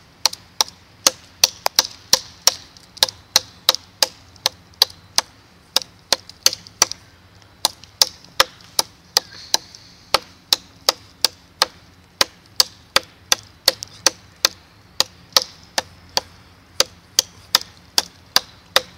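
Fixed-blade knife chopping into a live, wet branch about 4.5–5 cm thick: a steady run of sharp chops, about three a second.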